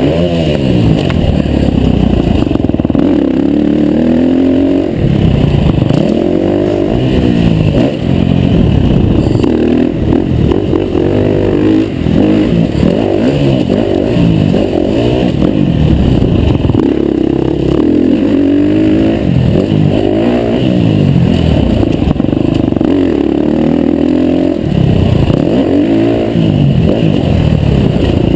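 KTM 350 four-stroke single-cylinder dirt bike engine, heard up close, revving hard and falling back over and over. The pitch climbs and drops every second or two as the throttle is opened and shut through the jumps and turns.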